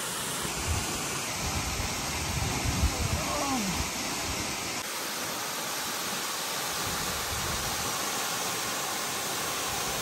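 Sajikot waterfall's water falling in a steady, even rush, with a faint brief voice about three seconds in.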